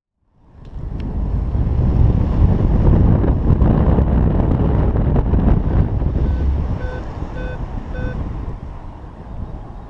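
Airflow buffeting the microphone of a paraglider's onboard camera in flight: a loud, low wind noise that rises in over the first second and eases toward the end. Around two-thirds of the way through, a flight variometer gives four short beeps of the same pitch, about two a second. This is its climb tone, the sign that the glider is in rising air.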